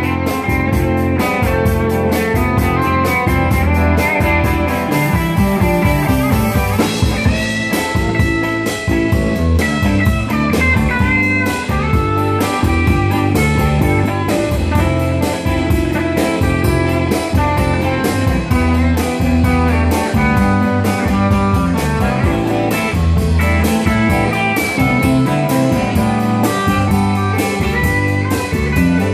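Live rock band playing an instrumental passage: two electric guitars, one holding long lead notes, over a drum kit keeping a steady beat.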